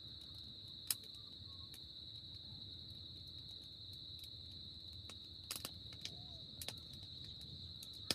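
Steady high-pitched insect chirring, with a few sharp pops from the campfire, several close together around the middle and one more near the end.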